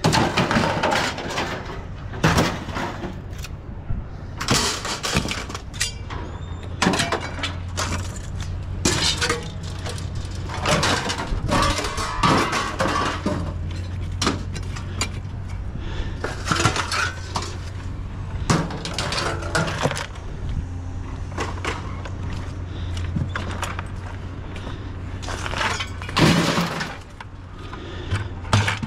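Scrap metal clanging and crashing as pieces are tossed off a load onto a pile, a fresh crash every second or so, over a steady low engine hum.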